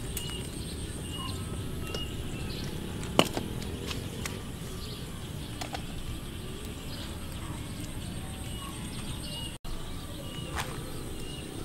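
Outdoor ambience: short high bird chirps repeating every couple of seconds over a steady low rumble, with one sharp knock about three seconds in.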